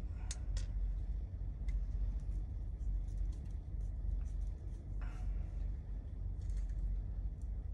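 Scattered light clicks and taps of a hex driver and small plastic RC truck suspension parts being handled, with a slightly fuller knock about five seconds in. Under them runs a steady low hum.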